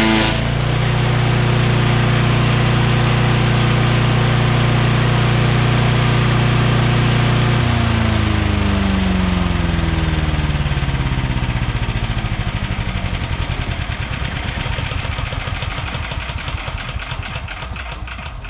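Chipper-shredder's small gasoline engine running at a steady speed on its test run, then shut off about eight seconds in. Its pitch falls away over the next several seconds as the engine and cutter coast down to a stop, fading out near the end.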